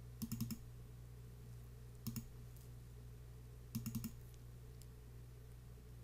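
Computer mouse clicking in three short runs of quick clicks: near the start, about two seconds in, and about four seconds in. A faint steady low hum lies underneath.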